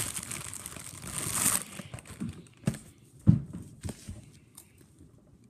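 Plastic cracker packaging crinkling as it is opened, for about the first second and a half, followed by a few short knocks and crunches, the loudest about three seconds in.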